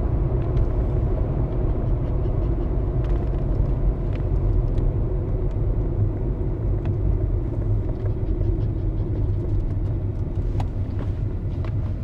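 Steady low rumble of a car on the move, with a few faint ticks.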